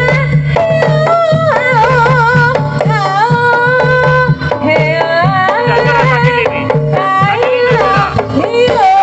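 Live jaranan gamelan music played through loudspeakers: kendang hand drums beat a fast, driving rhythm under a wavering melody line.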